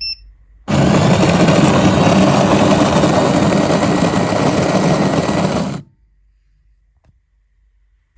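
Bean-to-cup coffee machine's built-in grinder grinding coffee beans, steady for about five seconds, then cutting off suddenly. A short beep sounds just before the grinding starts.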